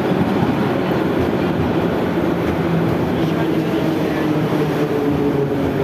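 Metro train pulling out of the station: a loud, steady rumble of wheels and running gear, with a low hum underneath.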